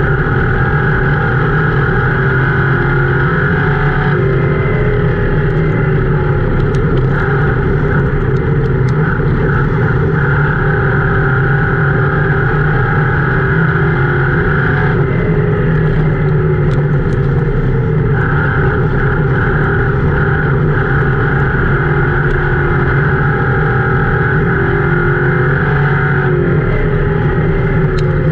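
Crown Victoria race car's V8 engine running hard at speed, heard loudly from inside the cabin, its note dipping slightly three times.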